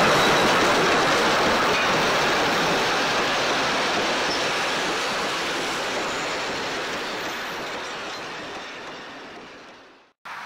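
Steam-hauled passenger train, locomotive Rx224 and its carriages, passing close by on the rails, loud at first and fading steadily as it moves away. The sound cuts off about ten seconds in.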